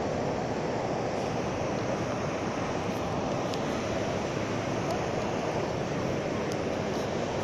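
Steady sea surf breaking and washing up a sandy beach, mixed with wind.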